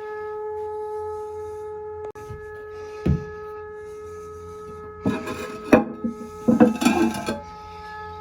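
A steady droning tone with several overtones coming through the house plumbing, made by a hose-bib vacuum breaker whose diaphragm has failed while a hose is left running. A knock about 2 seconds in, a thump about 3 seconds in, and a loud clatter of bumps from about 5 to 7 seconds.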